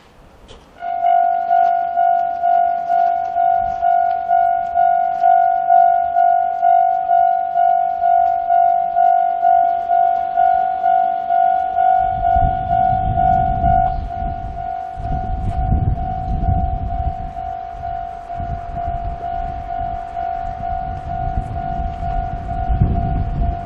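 Japanese railway level-crossing alarm with its Tokai-type electronic bell tone. It starts about a second in and rings in an even, repeating ding. From about halfway through, gusts of strong wind buffet the microphone, and the alarm drops a little in volume.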